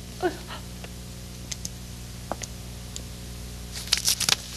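A brief pained whimper from a woman whose foot is being examined, falling in pitch. Then come a few faint scattered clicks and, near the end, a short burst of rustling and handling noise from cloth and hands, all over a steady low hum.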